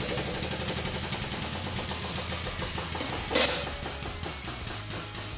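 Hydraulic press running and pressing down on an obsidian ball: a low steady hum with a rhythmic knocking pulse that slows from about eight to about three knocks a second. There is one short, sharp noise about three seconds in.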